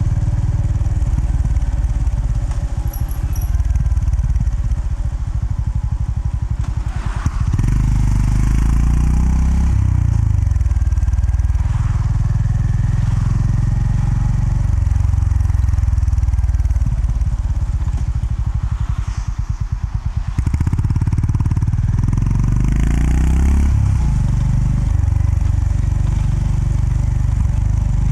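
Honda GB350S single-cylinder engine running on the move, its note rising several times as the bike accelerates and dropping back in between.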